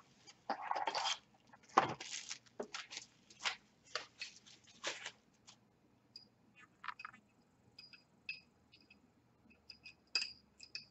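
Packaging paper and plastic rustling and tearing as a ceramic jewelry holder is unwrapped, then a string of small, high, ringing clinks as its wire heart is handled against the ceramic dish.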